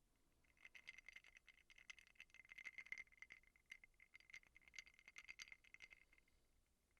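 Ice cubes rattling and clinking in a cup: a dense run of small quick clicks that starts about half a second in, is busiest around the middle and thins out near the end.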